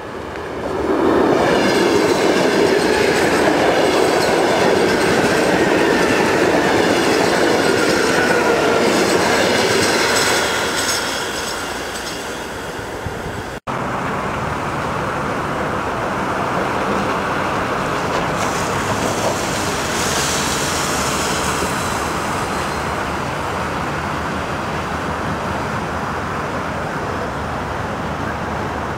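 A Russian electric multiple-unit train passes close by, loud for about nine seconds before fading. After an abrupt cut, the steady running noise of a moving electric train is heard from on board, with wheels clicking over rail joints.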